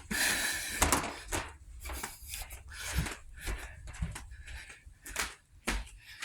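A run of irregular knocks and clicks, two or three a second, with a rustling hiss in the first second.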